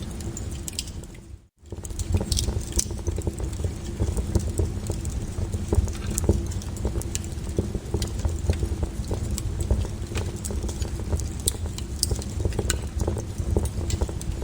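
Bonfire crackling: wood popping and snapping in sharp, irregular cracks over a steady low rumble of the flames. The sound cuts out briefly about a second and a half in, then carries on.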